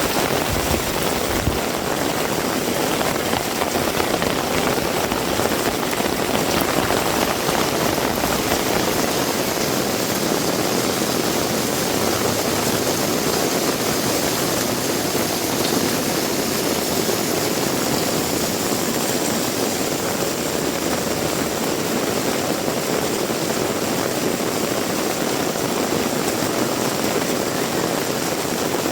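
Heavy rain pouring steadily, a dense even roar, with a low wind-like rumble underneath that eases about nine seconds in.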